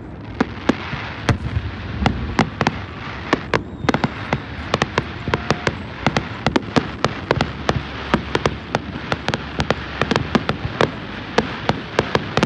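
Fireworks display in full swing: a rapid, continuous string of sharp bangs, several a second, over a steady crackle and low rumble.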